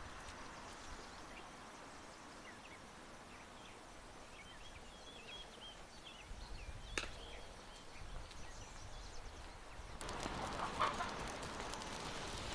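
Quiet outdoor ambience with birds chirping and chickens clucking. There is a single sharp click about seven seconds in, and near the end a louder patch of rapid clicks and rustling.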